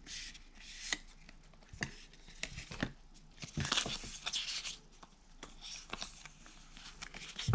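Paper and thin card packaging inserts of an iPhone box rustling and sliding against each other as they are pulled out and separated by hand, with light clicks and taps. The rustling is loudest a little past halfway through.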